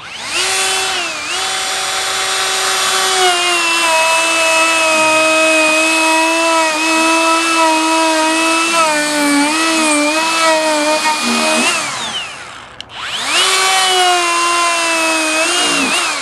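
Electric drill spinning a bit that cuts an eye socket into green wood, a steady motor whine. It runs for about twelve seconds, its pitch sagging and wavering under load near the end, then stops, and after a short pause it runs again for about three seconds.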